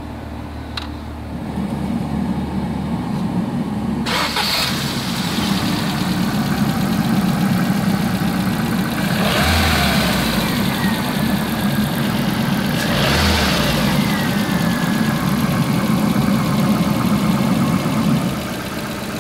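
A 2007 Ford Fiesta's 1.2-litre 16-valve Duratec four-cylinder petrol engine running steadily at idle under an open bonnet. It is briefly revved twice, about ten and thirteen seconds in, and the pitch falls back to idle after each.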